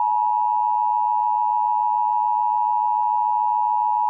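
NOAA Weather Radio emergency alert tone: one loud, steady, unbroken tone near 1 kHz, the attention signal that comes before a warning broadcast, here a civil danger warning.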